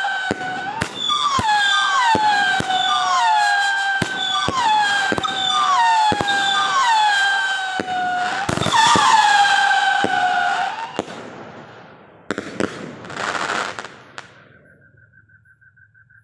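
Whistling 36-shot firework cake firing. Each shot goes up with a whistle that drops sharply in pitch and then holds, over sharp pops about one to two a second. The shots die away about eleven seconds in, and a brief rushing hiss follows near the end.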